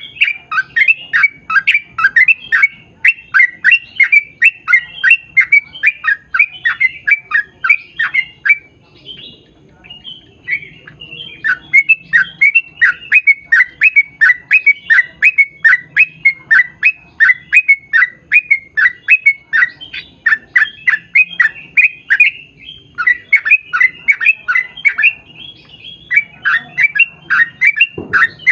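Yellow-vented bulbul (trucukan) singing long runs of rapid chattering notes, about four a second, with brief breaks about nine and twenty-two seconds in.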